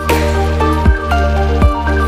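Background music: an electronic track with a steady beat, a deep kick drum about every three-quarters of a second under sustained melodic notes.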